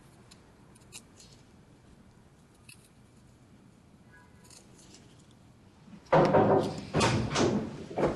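A pencil being sharpened, with a few faint clicks and then three or four loud scraping strokes about six seconds in.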